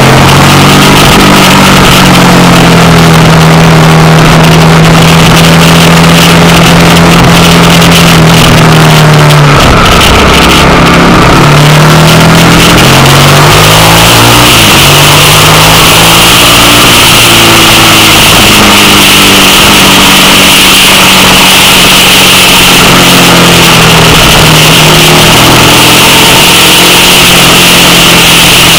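2000 Suzuki SV650's 645 cc V-twin engine running loud at cruising speed, its pitch falling and rising again around ten seconds in and once more a few seconds later as the throttle and gears change. Wind rushing over the handlebar-mounted microphone.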